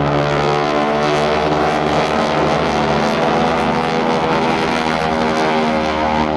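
Aircraft engine noise, a steady drone with a stack of held pitched tones.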